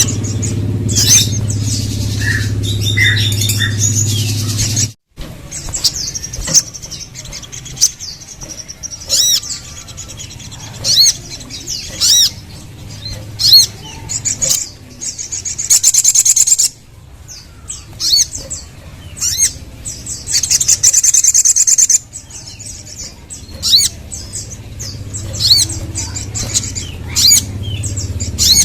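Sogon (little spiderhunter) calling: a string of sharp, high chirps, with two long, fast trills about a third and three-quarters of the way through. This is the lure call kicau keepers play to get a sogon to answer. A low hum runs under the first five seconds and cuts off.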